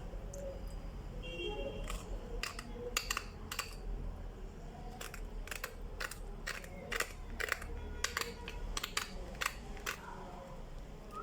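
A knife clicking and knocking on pieces of hard, dried costus root (qust hindi): irregular sharp clicks, about two a second, starting about two seconds in.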